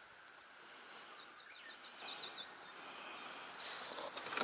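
A small songbird singing a run of about seven quick down-slurred whistled notes that grow louder, then a short fast trill, over a faint background hiss. A brief rustle comes near the end.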